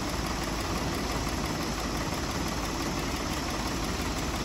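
Steady engine noise with a low rumble, unchanging throughout.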